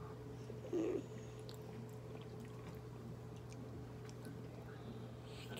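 Faint chewing and mouth sounds of someone eating a soft piece of gelatin, with a short low murmur about a second in. A steady low hum runs underneath.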